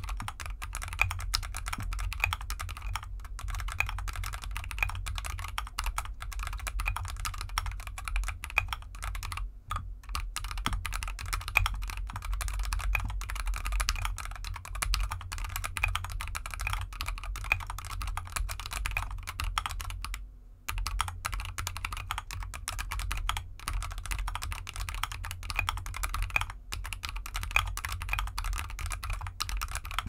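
Continuous typing on a GK64X mechanical keyboard with factory-lubed Gateron Cap Gold Yellow linear switches, SA-profile keycaps and a foam-dampened aluminium case, set on felt fabric. It is a dense, fast run of keystrokes with two short breaks, about ten and twenty seconds in.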